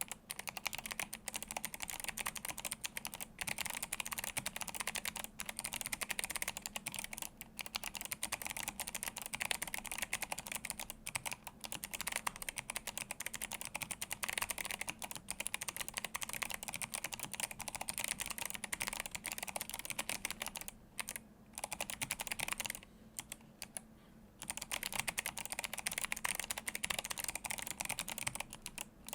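Fast, continuous typing on an Atreus62 handwired mechanical keyboard with Kailh Box Jade clicky switches and blank PBT keycaps: a dense stream of sharp key clicks, broken by two short pauses in the last third.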